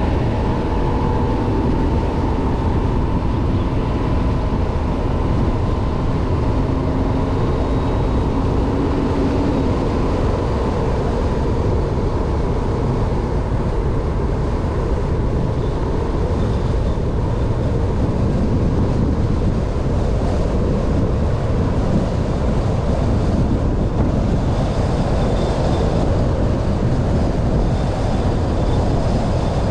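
A car driving along a road: a steady rumble of tyre and engine noise that does not let up, with a faint whine wavering in pitch during the first ten seconds or so.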